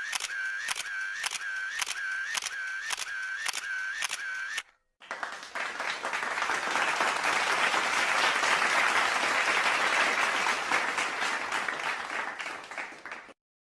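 Two sound effects in a row. First, a regular series of sharp clicks, about two a second, each with a short tone, for about four and a half seconds. Then applause, which swells and fades out over about eight seconds.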